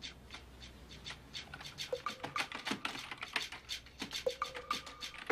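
Typing on a computer keyboard: a quick, uneven run of keystrokes. A few soft held musical notes come in about two seconds in.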